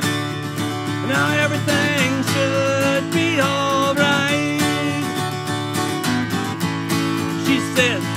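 Acoustic guitar strummed in a steady rhythm with a man singing a melody over it.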